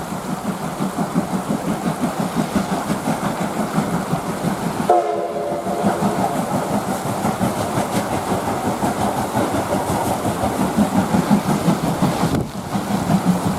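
Steam locomotive of the SL Yamaguchi running, its exhaust beating in a quick, even pulse. About five seconds in there is a short blast of its chime steam whistle.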